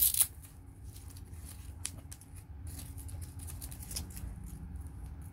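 Rustling and scattered light clicks of hands handling things off-camera, with a sharp crackle at the start, over a low steady rumble.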